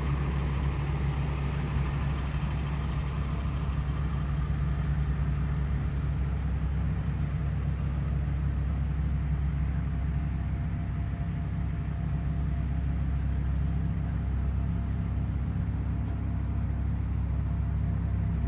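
Steady, loud, low-pitched drone of a vehicle running, even throughout.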